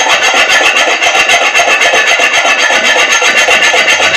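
A blade rasping quickly and steadily against a big rohu fish as it is cut, in quick, even strokes, several a second.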